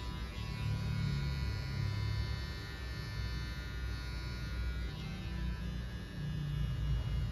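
Electric hair clipper buzzing steadily as it cuts hair at the side of the head.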